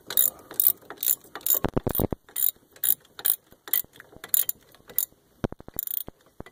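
3/8-inch drive ratchet with a 13 mm socket clicking in short, repeated strokes, about two bursts a second, as it backs out an already-loosened brake caliper-bracket bolt.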